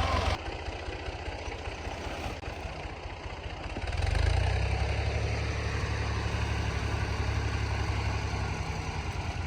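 Massey Ferguson 385 tractor's four-cylinder diesel engine running with a steady low rumble that grows louder about four seconds in. A broad hiss of background noise drops away abruptly just after the start.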